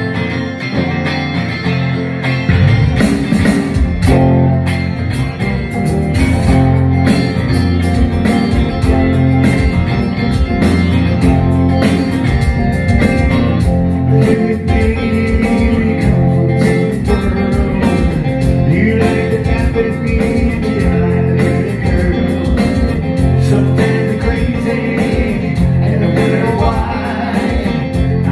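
A small band playing live: electric guitar and electric bass over a steady beat.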